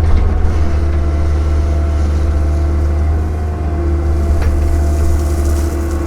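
Cat 305 mini excavator's diesel engine running steadily under work, a constant low hum with a steady higher tone over it.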